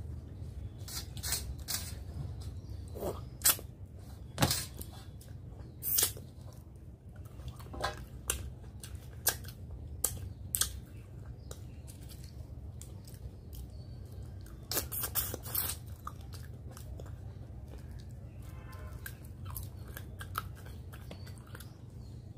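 Close-miked chewing of rice and fish-head curry eaten with the fingers, with irregular sharp wet clicks and crunches, and fingers scraping the brass plate, over a low steady hum.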